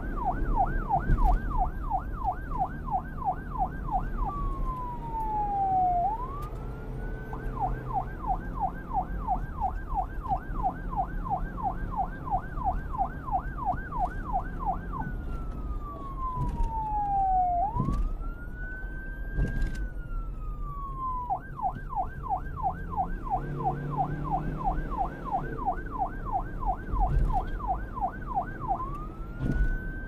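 Electronic police siren switching between a fast yelp, about three rapid pitch sweeps a second, and a slow wail that falls and rises again, three times through. A low rumble runs underneath.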